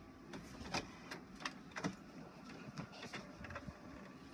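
HP all-in-one inkjet printer running a print job: a low whir with a string of irregular clicks and ticks.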